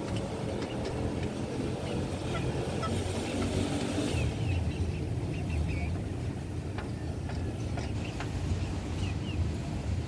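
Caged chickens giving a few faint short chirps, over a steady low rumble of background noise.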